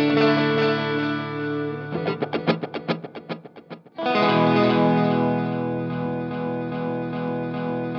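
Electric guitar played through a modified Boss DD-3 digital delay pedal. Chords ring with echoing repeats, then a quick run of short picked notes echoes and fades out. About halfway in, a dense held chord comes in suddenly and stays steady, held by the pedal's added sustain switch.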